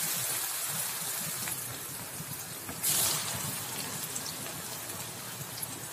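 Sliced tempe deep-frying in hot oil in a wok: a loud, even sizzle from pieces just dropped into the hot oil, swelling again about three seconds in.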